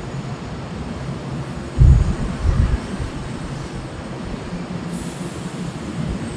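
Boeing 747-8's four GEnx jet engines heard from a distance as a steady low rumble. Two heavy low thumps come about two seconds in, and a brief high hiss near the end.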